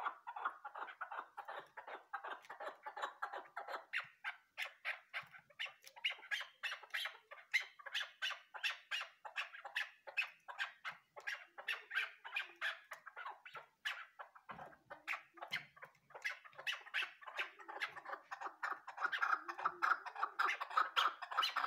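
Caged chukar partridge calling: a long, rapid run of short clucking notes, several a second.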